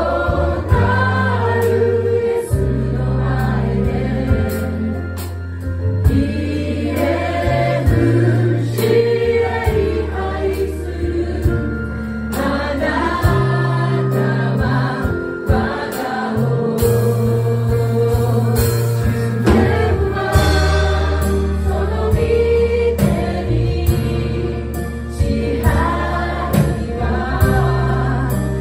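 Live worship band playing a Japanese praise song in B-flat: several voices singing together over acoustic and electric guitars, keyboard and drums, with a steady beat.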